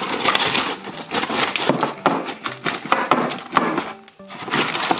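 A cardboard toy-kit box being handled and opened: irregular scraping, rubbing and sharp clicks of cardboard, with a brief pause about four seconds in.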